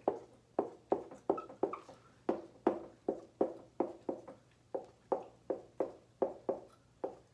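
Dry-erase marker tapping dots onto a whiteboard: a steady run of short knocks, about three a second, one for each electron dot drawn.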